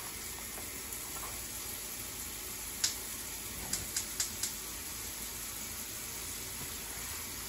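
Kitchen faucet running a steady stream of water into a metal pot of raw chicken wings in the sink, filling it to cover the wings. A few light clicks come a little before the middle.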